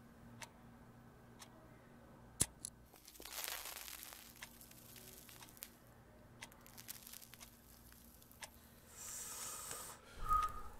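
Tobacco pipe being lit: a sharp click about two and a half seconds in, then a rough hiss about a second long as a flame is struck, with scattered small clicks, another short hiss and a sharp click near the end.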